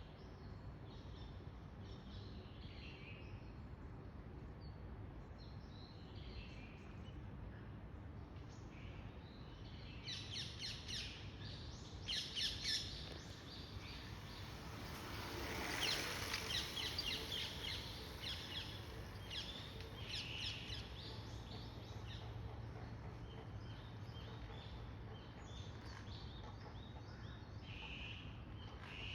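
Birds chirping and calling in short high notes throughout, with a louder run of rapid repeated notes about ten seconds in and again around twelve seconds. A swell of rushing noise rises and falls around sixteen seconds, under a steady low background rumble.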